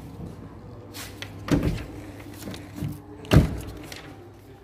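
The rear doors of a Renault Dokker Stepway van being shut one after the other: two thuds about two seconds apart, the second the louder, with a lighter knock between them.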